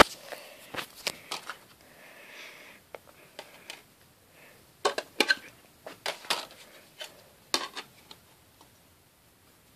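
Scattered clicks and light clatter of small hard objects being handled and knocked together, in two clusters: during the first second and a half, and again from about five to eight seconds in.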